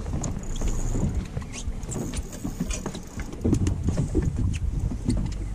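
Wind on the microphone and water slapping against a small fishing boat's hull, with scattered light clicks and taps.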